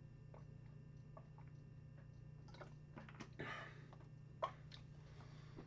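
Near silence: a steady low hum with a few faint scattered clicks, a brief rustle about three and a half seconds in and a slightly sharper click about a second later.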